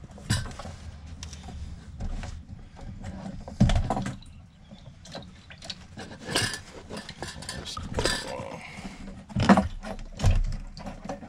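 Fuel pump module and its plastic lines being handled and fitted: scattered clicks, knocks and rattles, the loudest knocks about four seconds and nine and a half seconds in.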